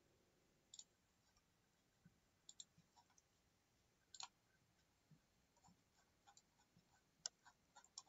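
Faint computer mouse clicks, about a dozen scattered irregularly through otherwise near silence.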